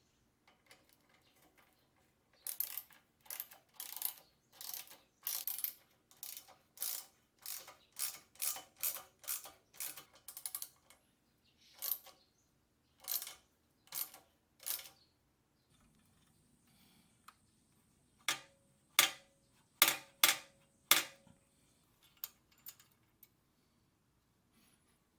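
A hand-worked metal mechanism or tool clicking and rasping in short, quick strokes, about two a second, with a pause and then a louder group of four strokes near the end.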